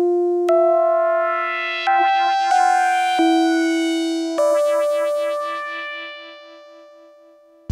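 Arturia MicroFreak synthesizer playing a factory preset: a bright keyboard-like tone, six notes struck one after another, each dying away, the last ringing out with a pulsing lower note and fading slowly.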